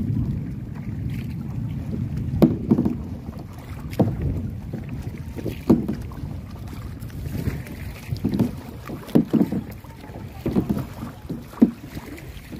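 Kayak paddle strokes dipping into the water about every one and a half seconds, some in quick pairs, over a low rumble of wind on the microphone.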